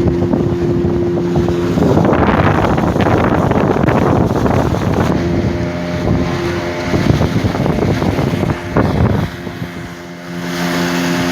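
Two-stroke speedboat outboard engine, converted to run on LPG, running steadily at speed under way. Its steady hum is interrupted twice by stretches of rushing wind and water noise.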